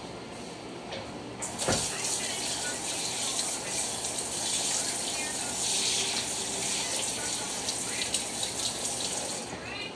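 Kitchen faucet running as hands are washed under it: a steady rush of water that starts about a second and a half in, with a knock as it comes on, and stops near the end.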